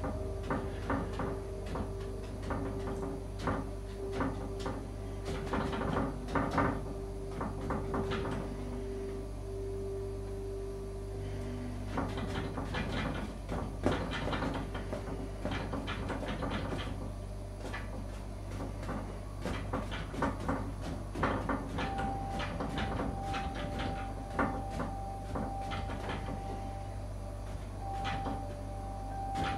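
Bristle paintbrush tapped and dabbed against a stretched canvas on an easel: runs of soft, irregular taps as foliage is pushed onto the painting.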